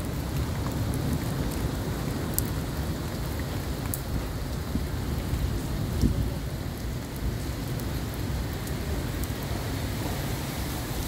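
Heavy rain falling and splashing on surfaces: a steady hiss with a strong low rumble underneath and scattered sharp ticks of single drops striking close by.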